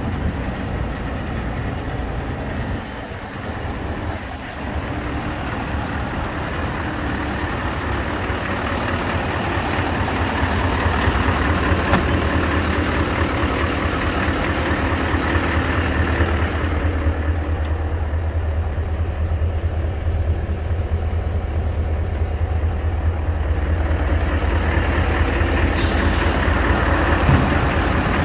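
Mercedes-Benz SK 2544 tipper's V8 diesel engine idling steadily.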